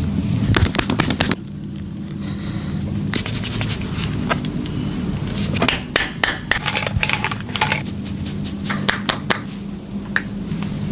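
Hands working over a body in a massage or chiropractic session: clusters of sharp cracks and pops with rubbing and scraping, over a steady low hum.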